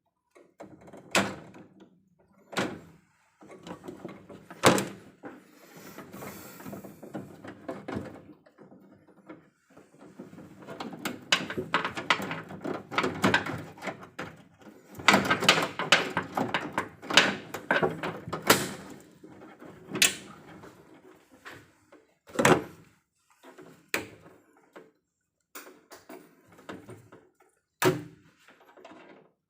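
Irregular knocks, clicks and clatter of hand tools and hardware being handled during electrical panel cable repair, with a denser run of clatter in the middle.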